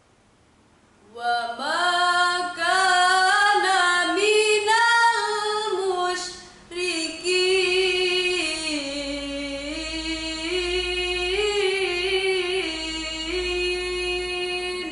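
A young woman reciting the Qur'an in melodic tilawah style, unaccompanied, her voice gliding through ornamented phrases. She begins about a second in, takes a brief breath around six seconds, and ends on a long held note.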